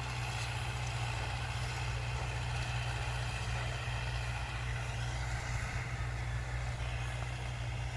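Farm tractor's diesel engine running steadily under load as it pulls a tillage implement through the field, a low even drone.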